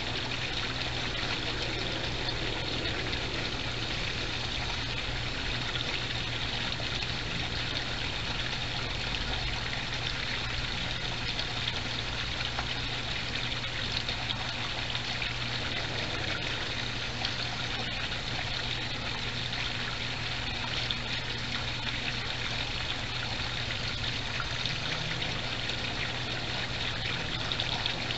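Steady trickling water from a backyard koi pond, with a low steady hum underneath.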